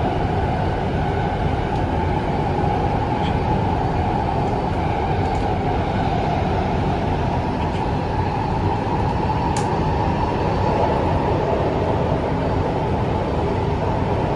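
Kaohsiung MRT Red Line metro train running between stations, heard inside the passenger car: a steady, even running noise, with one faint click about ten seconds in.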